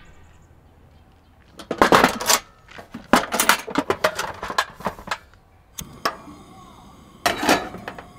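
Metal cookware and gear clattering and rattling as items are lifted out of a metal box, then a couple of clicks and the steady hiss of a Coleman propane camp stove burner. A metal kettle is set down on the stove's grate with a clatter near the end.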